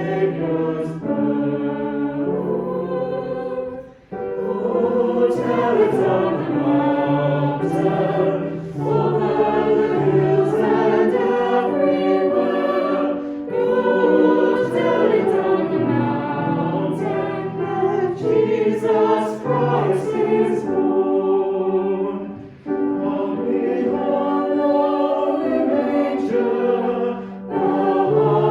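Choir singing in long held phrases, with brief breaks between phrases.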